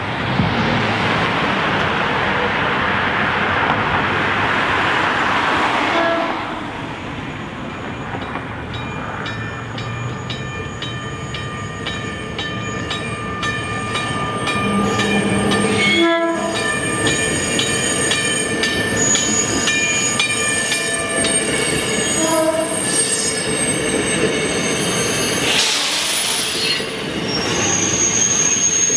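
South Shore Line electric commuter train running down street-running track toward the listener and passing close, with short horn notes as it approaches. Its steel wheels squeal on the rails, louder as it goes by near the end. A steady rushing noise fills the first six seconds.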